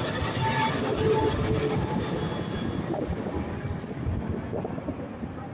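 Jet noise from a Boeing 777-300ER's two GE90-115B turbofans as the airliner passes low overhead on landing approach. It is a dense rumble that fades as the plane moves away, and its higher hiss drops off about three seconds in.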